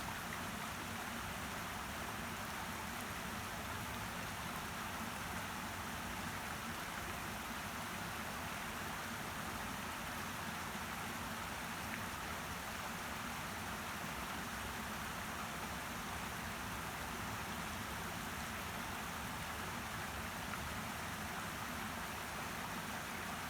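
Steady, even rushing of water with no distinct drops, splashes or other events.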